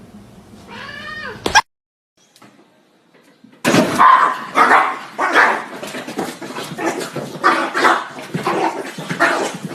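A dog's brief whining cry, cut off by an edit, then after a short gap a long run of repeated yelps and cries.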